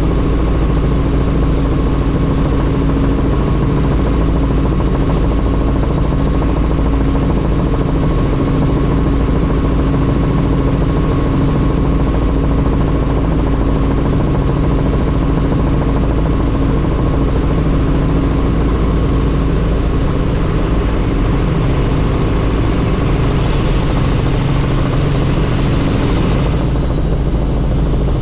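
Helicopter in flight: a loud, steady drone of engine and rotor over a deep low rumble, with a few steady tones held above it. Near the end a hiss swells for a few seconds, then cuts off suddenly.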